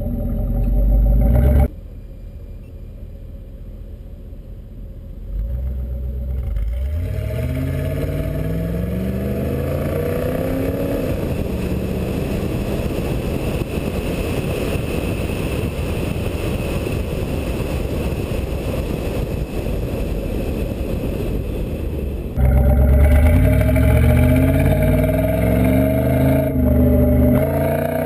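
1985 Pontiac Trans Am's V8 exhaust. The car pulls away with the engine pitch rising in steps as it shifts up through the gears, then cruises steadily with rushing wind noise. From about 22 seconds in it is heard loud and close, rumbling and revving up.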